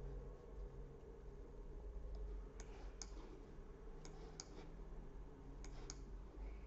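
Faint clicking of computer keys, in pairs and small groups, as a web search is typed in, over a low steady hum.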